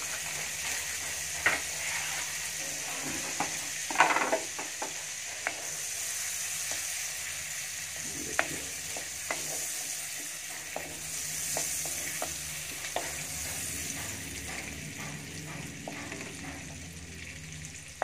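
Butter melting and sizzling in a hot kadhai (wok), stirred with a wooden spatula that scrapes and taps against the pan. A steady high sizzle runs under sharp clicks that come throughout.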